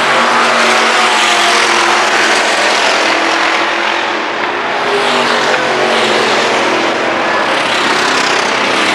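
A pack of stock cars racing on a dirt oval, several engines running loud and steady, their pitch rising and falling as cars go by.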